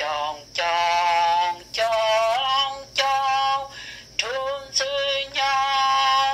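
A voice singing a slow melody in long held notes, about five phrases with short breaks between them.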